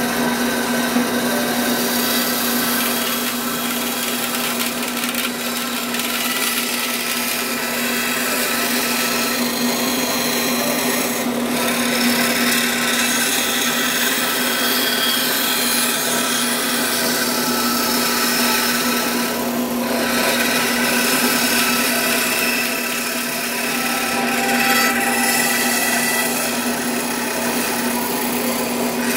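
Bandsaw running with a steady hum, unbroken and at an even level.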